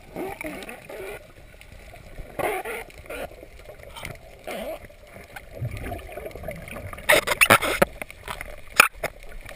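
Water splashing and sloshing, with a quick run of sharp splashes about seven seconds in and one more near the end; faint voices in the first second.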